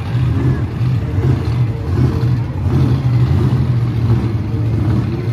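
Monster truck engine running with a steady, deep rumble.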